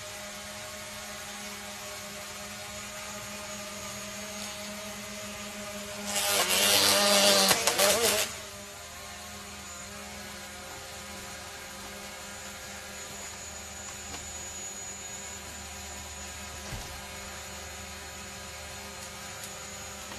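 Quadcopter drone hovering with a steady propeller whine. About six seconds in comes a loud, rough burst lasting about two seconds as its propellers tear into a papery hornet nest, then the steady hovering whine carries on.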